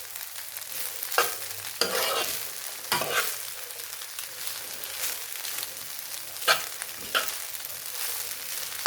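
Fried rice sizzling in a pot as it is stirred, with a spoon scraping and knocking against the pot several times at uneven intervals.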